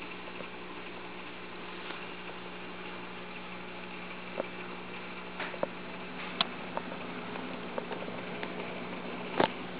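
Steady electrical hum of aquarium pump and filter equipment, with several sharp clicks scattered through the second half, the loudest near the end.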